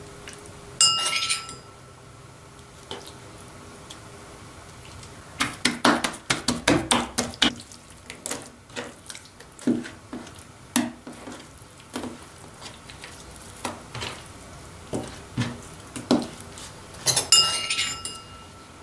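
A metal spoon clinking with a short ring twice, about a second in and again near the end. Between them come irregular taps and soft slaps as raw beef lip pieces are handled and turned over on a cutting board.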